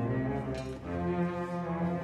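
String orchestra of cellos and violins playing slow, held notes, with a brief dip a little under a second in before the next chord.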